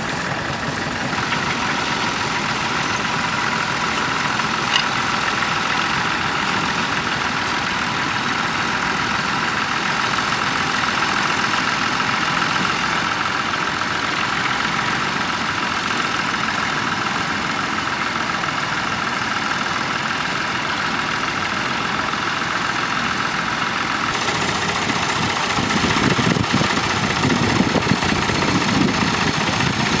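Vintage Fordson tractor's engine running steadily under load as it pulls a plough. Near the end the sound changes to a louder, closer tractor engine.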